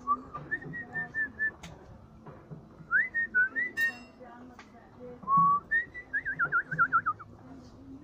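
Whistling: a string of short whistled notes, then a few rising and falling ones, a single held note about five seconds in, and a fast warbling trill near the end.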